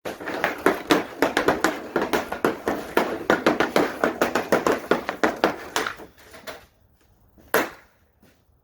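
A rapid, uneven run of sharp taps or clicks, several a second, that stops about six seconds in, then a single louder knock near the end.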